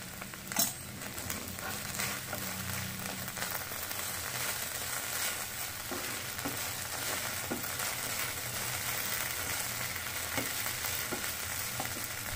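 Sliced okra frying in oil in a pan, with a steady sizzle, while a wooden spatula stirs it and now and then scrapes or taps the pan in short clicks.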